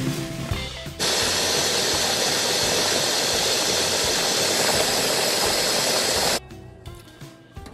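Food processor motor running for about five seconds, blending vegetables to a purée: a loud, even whirring noise that starts abruptly about a second in and cuts off suddenly. Guitar music plays faintly before and after.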